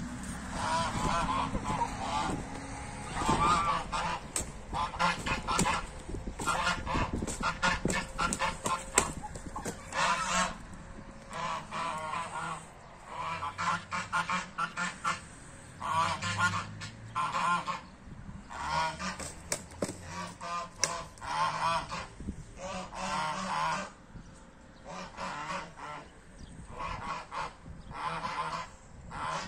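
Domestic geese honking over and over in short, repeated calls during a fight in which a white goose has a rooster gripped by the neck.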